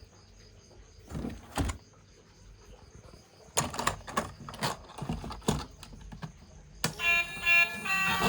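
Knocks and scrapes of plastic being handled: a short bout, a pause, then about six knocks in a row. Music with a melody starts near the end.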